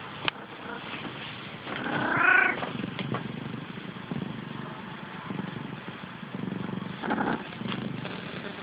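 Calico cat purring with a steady low rumble while being petted close to the microphone, with one short meow about two seconds in.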